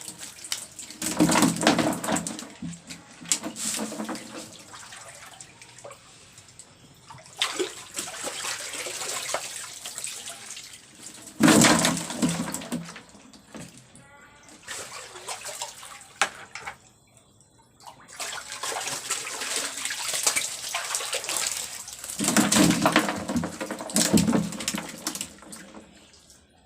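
Water splashing and sloshing in repeated bursts a few seconds long, with quieter gaps between, as jumbo catfish are caught during a pond harvest. The strongest burst comes about halfway through.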